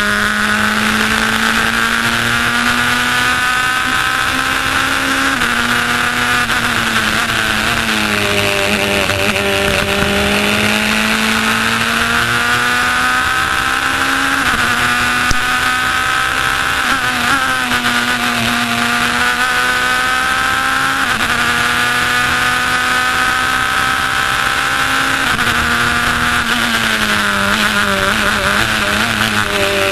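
Onboard sound of an open-cockpit race car's engine at racing speed, its pitch climbing through the gears and stepping down at each upshift every few seconds, and falling away in long glides as the car slows for corners. A steady rush of wind runs underneath.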